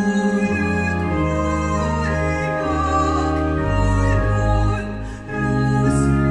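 A woman singing a Danish hymn to pipe organ accompaniment: held organ chords over deep pedal notes, with a wavering solo voice above. About five seconds in the music eases off briefly before the next phrase begins.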